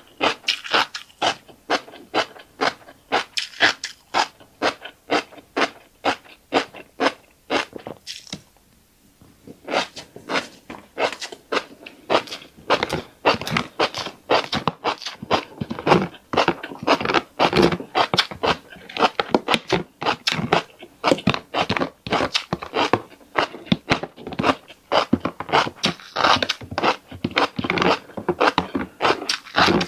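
Crunchy chewing of a mouthful of tiny black seeds, close to the microphone: quick crisp crunches about two or three a second, pausing for about a second around nine seconds in.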